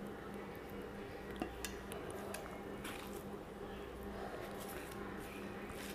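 Fingers mixing rice on a stainless steel plate: soft squishing with scattered light clicks against the metal, a few sharper ones about one and a half seconds in.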